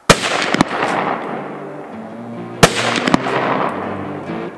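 Two rifle shots about two and a half seconds apart, each a sharp crack with a fainter crack about half a second after it, with background music under them.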